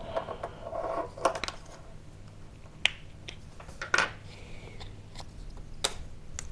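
Sharp plastic clicks and taps, about four of them a second or more apart, with soft handling rustle at first, as the plastic housing of a car windscreen rain sensor is pried apart by hand with a small tool.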